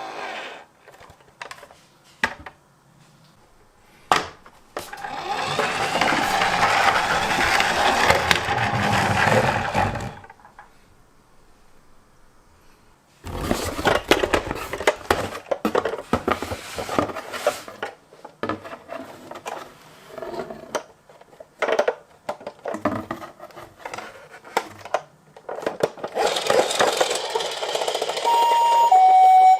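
Toy minicar ambulance handled on a hard surface: plastic clicks and rattles, and a whirring run of about five seconds as the small car's drive spins. Near the end its electronic Japanese-style ambulance siren starts, two notes alternating high-low.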